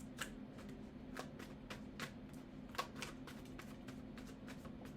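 Tarot cards being shuffled and handled: irregular soft clicks and snaps of card stock, a few each second, over a faint steady hum.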